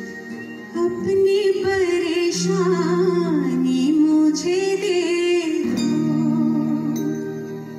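A woman singing live into a microphone over keyboard and guitar accompaniment. Her held, wavering vocal line comes in about a second in and stops well before the end, while the instruments keep holding chords.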